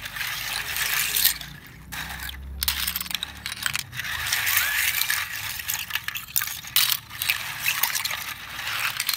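Wet bivalve seashells being swirled by hand in water in a steel basin: water sloshing, with the shells clicking and clattering against each other and the metal.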